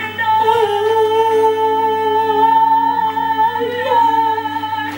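Music of long sustained notes: one held chord with a slight change in pitch near the end, then an abrupt stop.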